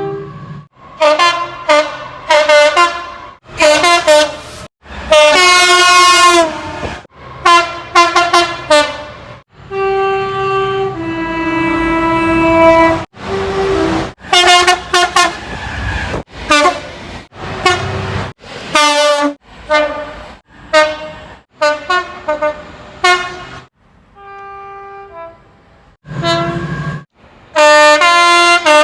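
British railway train horns sounding in quick succession, one after another, each starting and stopping abruptly. Most are short two-tone blasts, a high note then a low one. One about five seconds in sags in pitch at its end, and a longer two-note sounding comes around eleven to thirteen seconds.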